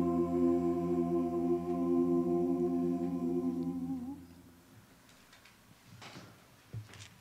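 A small group of singers holding a final chord, which dies away about four seconds in. Then soft rustling and a couple of light knocks as the music is put down.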